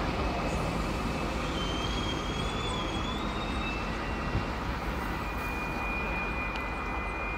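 Steady rolling noise of a train passing, slowly fading, with a few thin high tones over it.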